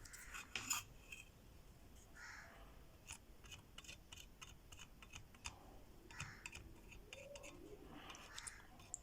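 Faint, scattered small clicks and light scrapes, the sound of hand tools being handled against the board and bench during soldering work on the phone's charging port.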